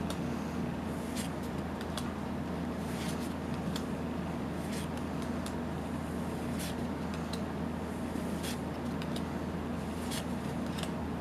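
Yu-Gi-Oh! trading cards being flipped and slid over one another by hand, giving irregular light clicks and snaps. A steady low hum runs underneath.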